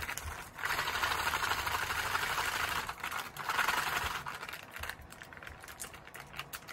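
Plastic MRE drink pouch being shaken hard to mix strawberry dairyshake powder with water, in two long spells of shaking, the second shorter; then quieter crinkling as the pouch is handled.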